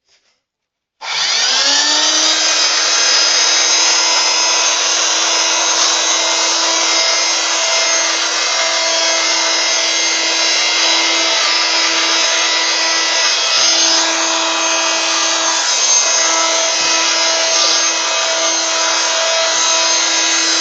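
A Soviet Veterok-3 handheld brush vacuum cleaner switched on about a second in: its small electric motor spins up quickly, then runs with a loud, steady high whine over a rush of air.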